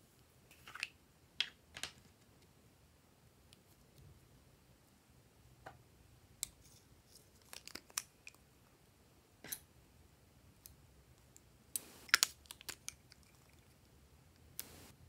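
Sporadic small clicks, taps and rustles of hands handling small plastic bottles, caps and scissors over a tray of slime, with a quick cluster of sharp clicks about twelve seconds in.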